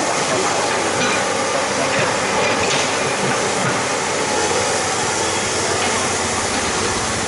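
Excavator's diesel engine and hydraulics running steadily, a constant loud noise with an even hiss.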